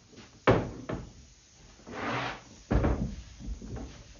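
Plywood box being handled on a workbench: a few sharp wooden knocks, with a short scraping slide between them.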